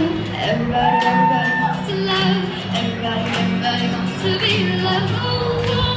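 Two acoustic guitars strummed as accompaniment while a young girl sings long held notes.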